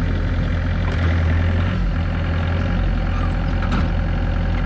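Bobcat E42 compact excavator's diesel engine running steadily under hydraulic load as the machine is raised off the ground to measure track sag.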